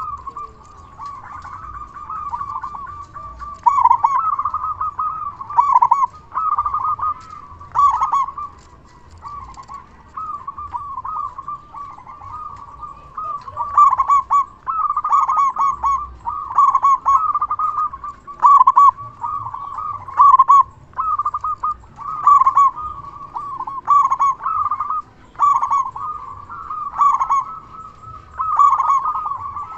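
Local zebra dove (perkutut) cooing over and over, its rolling phrases coming every second or two. It is a loud, full-voiced call, the kind of singing meant to set other zebra doves calling back.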